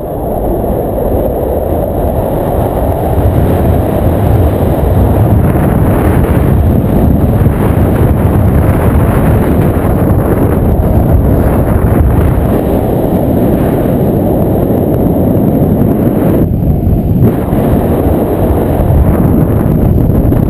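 Wind rushing and buffeting over an action camera's microphone on a paraglider in flight, a loud, steady rumble that eases briefly about three quarters of the way through.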